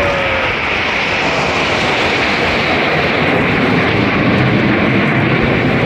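Jet noise from the Red Arrows' formation of BAE Hawk T1 jets flying overhead: a loud, steady rushing sound that grows deeper about halfway through.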